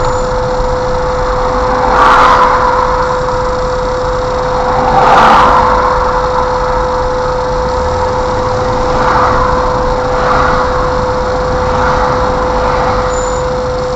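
Car engine and road noise heard from inside a slow-moving car through a dashcam microphone, with a constant pitched hum underneath. A few swells of louder rushing noise come and go, the biggest about two and five seconds in.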